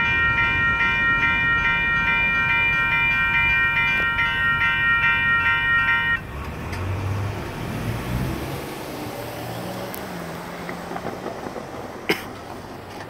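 Railroad crossing signals' electronic bells, a WCH Gen 2 Type 3 and a General Signals Type 2, ringing steadily and then cutting off suddenly about six seconds in: the train has cleared and the gates are about to rise. Under them, the low rumble of the departing train fades out a couple of seconds later.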